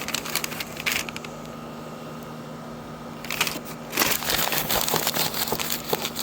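Handling noise: crinkling and rustling with scattered clicks as parts of a kayak anchor trolley kit and its rope are handled, densest from about four seconds on, over a steady low hum.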